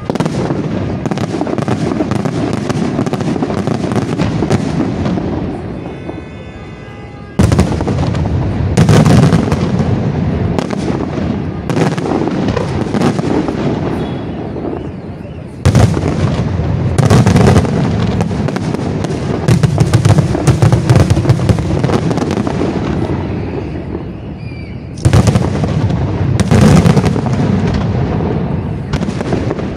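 Aerial fireworks display: dense, rapid barrages of shell bursts and crackling bangs. They come in waves, with fresh volleys starting suddenly about 7, 16 and 25 seconds in, each thinning out over several seconds.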